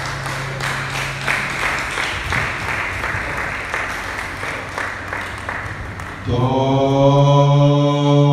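A group of men singing or chanting with rhythmic hand clapping, about three claps a second. About six seconds in, a loud held sung note comes in over it.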